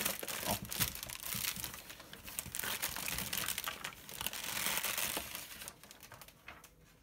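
Plastic air-column packaging crinkling and rustling as hands pull a radio-control transmitter out of it. The dense crackle dies down about five and a half seconds in, leaving a few soft handling clicks.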